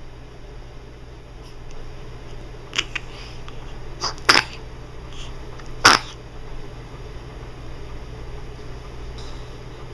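A baby sneezing twice, two short sharp bursts about a second and a half apart, after a few fainter short catches of breath.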